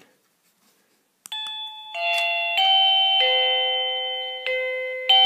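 1byOne wireless doorbell receiver playing its electronic chime melody, a run of ringing notes that starts with a click about a second in, as it powers up and pairs with the bell push.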